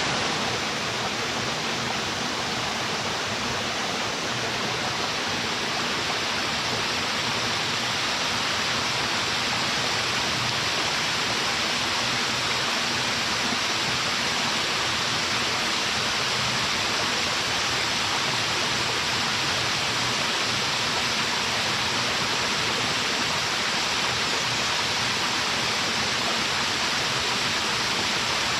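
Waterfall pouring steadily, a dense even rush of falling water with no breaks.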